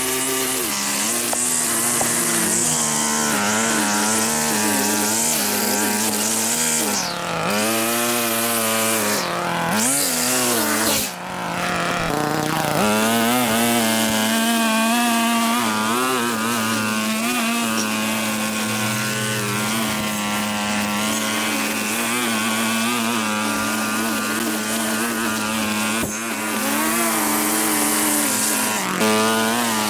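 Small petrol engine of a mower or line trimmer running hard while cutting overgrown grass. Its pitch drops and picks back up a few times in the first half, then holds steady.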